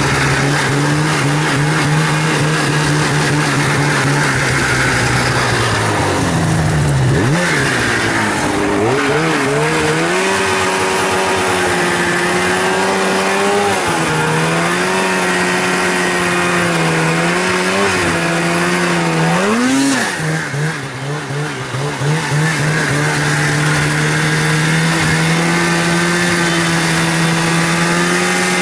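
Polaris Pro-RMK snowmobile's two-stroke engine running at steady high revs, its pitch dipping and rising back about seven and twenty seconds in. For part of the time the sled is tipped on its side with the track spinning against the hard crust, throwing snow into the tunnel to cool the engine.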